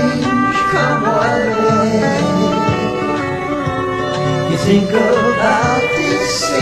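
Country-rock band music with guitar to the fore.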